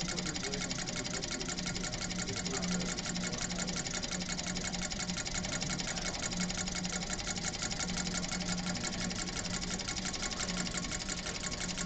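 Stirling engine running steadily at speed, driving a carbon-fibre-bladed fan: a fast, even mechanical clatter with the whir of the spinning blades and a steady low hum.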